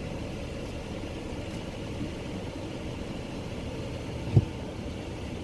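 Car engine idling: a steady low rumble. One brief low thump comes about four seconds in.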